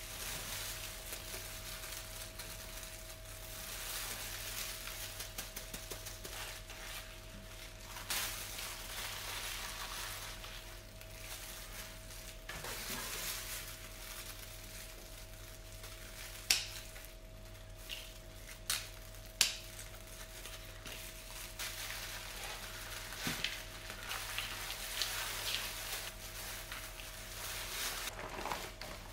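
Potting soil rustling and scraping as a houseplant is repotted, in uneven swells, with a few sharp knocks, two of them loud, from the pot or tools, over a faint steady hum.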